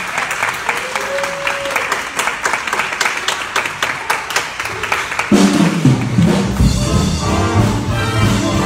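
Audience applauding with rhythmic clapping, then a jazz big band comes in with horns and bass about five seconds in, playing a swing number.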